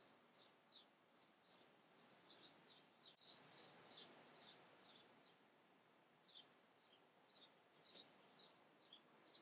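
Faint small birds chirping: many short, high, falling notes in quick runs, busiest about two to four seconds in and again near the end, over a soft outdoor hiss.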